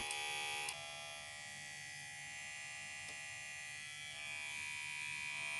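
Kemei KM1986+PG cordless hair clipper running with a steady buzzing hum. It drops a little in level just under a second in and rises again around four seconds in.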